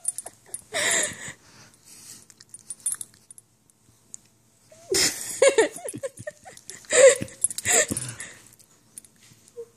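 A small dog whining in short squeaky bursts, mixed with breathy, wheezing laughter.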